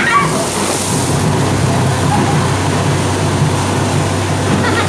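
Borewell drilling rig running, with a steady engine drone under a continuous rush of compressed air blowing water and cuttings up out of the bore. There is a brief, louder burst of hiss near the start.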